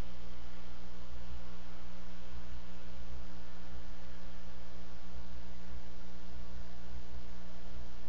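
Steady electrical mains hum with an even hiss from a wildlife camera's microphone feed, unchanging throughout.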